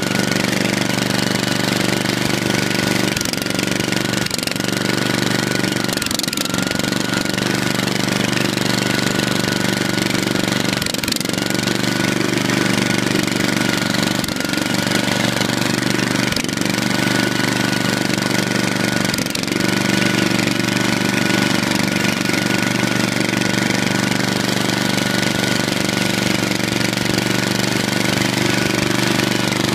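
Riding lawn tractor's small engine running steadily as it drives, with a few brief knocks during the first twenty seconds.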